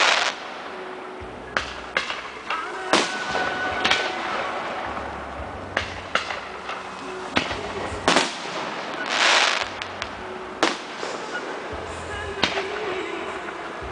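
Aerial fireworks display: shells bursting in an irregular series of sharp bangs, about a dozen, with one longer hissing burst a little past the middle.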